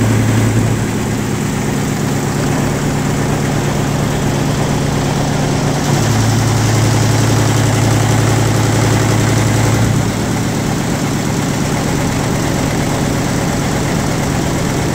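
An engine idling steadily, its speed shifting slightly a few times: down about a second in, up around six seconds, and down again around ten seconds.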